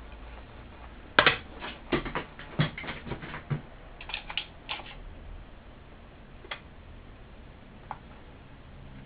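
An ESS AMT woofer's frame knocking on a concrete floor as it is turned over and set down. A quick run of clatters and knocks lasts about four seconds, then two single clicks follow.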